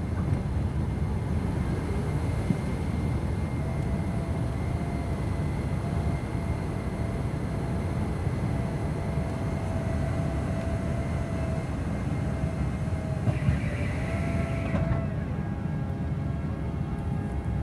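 Airliner jet engines and airflow heard from inside the cabin during the initial climb after takeoff: a steady low rumble with a faint wavering engine whine. About fifteen seconds in, the higher hiss drops off.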